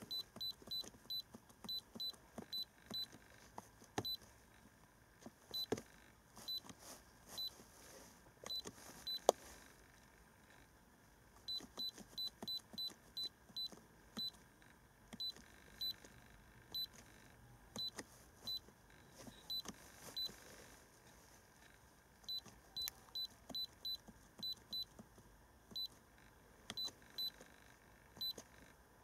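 Short high-pitched key beeps from a handheld iCarsoft i930 diagnostic scan tool, one for each button press, coming in runs of about three a second as its menus are scrolled, with pauses between runs. Soft clicks from the buttons and handling come in between, with one sharper click about nine seconds in.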